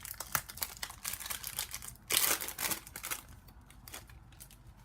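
Foil wrapper of a Topps Chrome trading-card pack crinkling as it is handled and opened, with a louder stretch of crinkling about two seconds in, then quieter.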